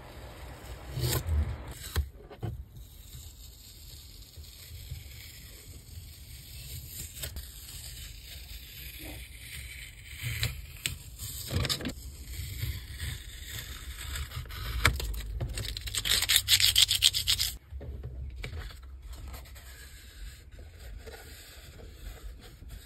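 Blue painter's tape being peeled off the edges of a sheet of painting paper, with rustling and rubbing of the paper. The longest and loudest peel is a crackling tear about two-thirds of the way in that stops abruptly.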